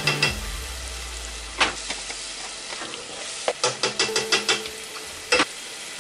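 Quinoa stir-frying in olive oil in a hot pan: a steady sizzle, with a utensil knocking against the pan as it is stirred, in a quick run of knocks about three and a half seconds in.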